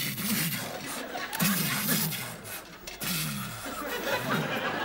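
Studio audience laughing: a mass of overlapping voices that rises and falls with no clear single speaker.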